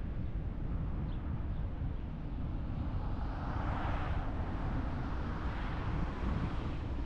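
Steady low rumble of wind and road noise from a car driving along a road. Two swelling whooshes rise and fade, the first peaking about four seconds in and the second about six seconds in.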